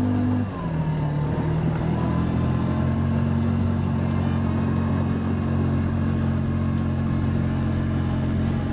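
ATV engine running under way; its note drops briefly about half a second in, climbs back, and then holds steady.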